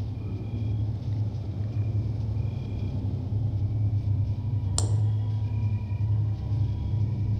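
Ominous low drone of a horror film soundtrack, steady throughout, with faint high tones recurring every second or two and a single sharp, ringing strike about five seconds in.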